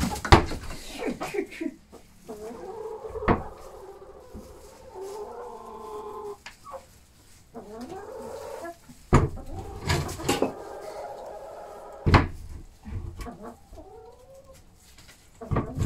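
Hens clucking, with drawn-out wavering calls through the middle, broken by a few sharp knocks; the loudest knocks come just after the start and about nine and twelve seconds in.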